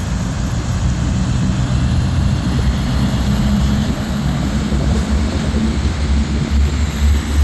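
Heavy diesel tipper truck towing a dog trailer passing close by, its engine running with a steady low rumble over tyre and road noise.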